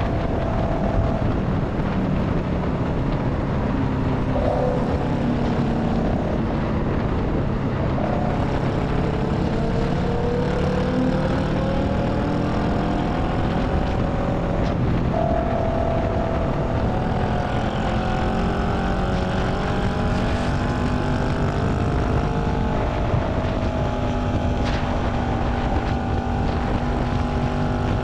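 2018 Honda Rebel 500's parallel-twin engine running steadily at highway cruising speed through a Radiant Cycles Shorty GP slip-on exhaust, its pitch drifting gently up and down, over road and wind noise.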